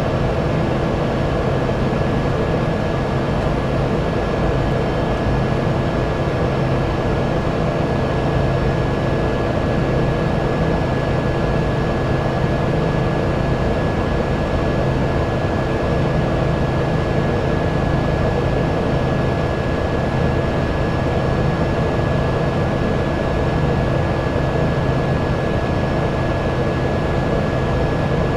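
Cessna Caravan's Pratt & Whitney PT6A turboprop engine and propeller running steadily, heard inside the cockpit: a constant drone with a steady high whine over it.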